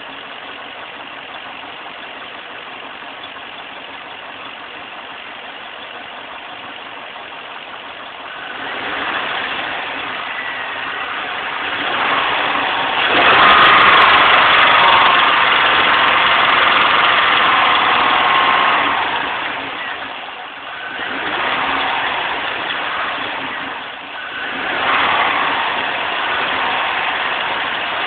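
Chevrolet C5 Corvette's LS1 5.7-litre V8 running steadily at first, then brought up to higher engine speed about a third of the way in and held there, easing off and picking up again twice near the end. Above 2000 rpm it makes a rattle or tapping that is most pronounced under the intake area; the owner has ruled out the belts and rockers, and its cause is unknown.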